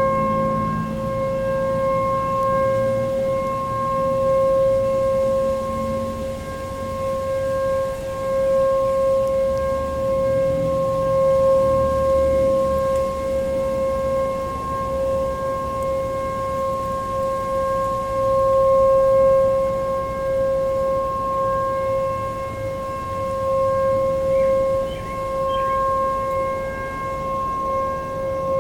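Sentry 14V-B outdoor warning siren sounding a steady tone during its monthly test, heard from about half a mile away. Its loudness wavers gently as it holds the pitch, over a low background rumble.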